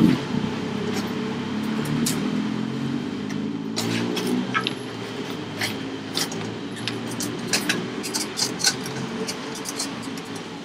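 Street traffic: a motor vehicle's engine running close by, loudest at the very start and fading over the next few seconds, with scattered sharp clicks and taps.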